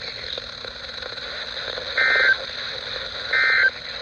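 Two short, identical bursts of Emergency Alert System digital data tones, each about a third of a second long and a little over a second apart, over steady hiss. These are the end-of-message bursts that close a broadcast warning.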